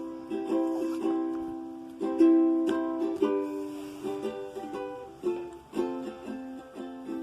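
Acoustic guitar (violão) being played: picked notes that ring and fade, with a strummed chord about two seconds in, the loudest moment, and quicker picked notes toward the end.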